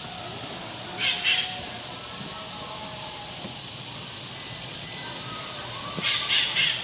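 A bird's harsh, raspy calls: two short calls about a second in, then three more near the end.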